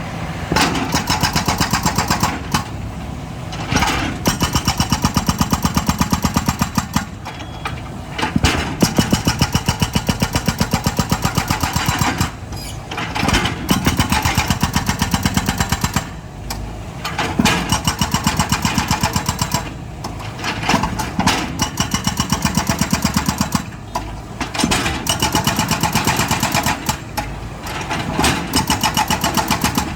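Excavator's diesel engine running with a fast pulsing beat, repeatedly swelling louder for three or four seconds at a time and then easing as the machine works its hydraulics digging.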